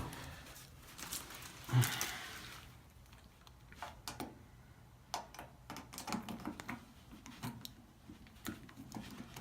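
Scattered light clicks and taps of tools and small metal parts being handled on a washing machine, with a soft thump and rustle about two seconds in.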